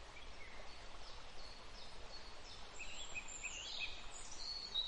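Small songbirds chirping and singing over a faint steady outdoor hiss; the calls are sparse at first and become busier and louder about halfway through.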